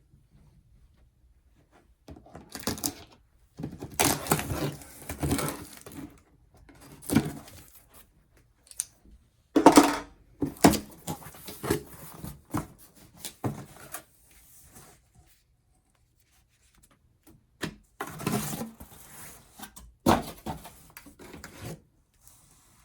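Packaging being handled and opened: irregular rustling and scraping with a few sharp knocks, the loudest about ten seconds in and again near twenty.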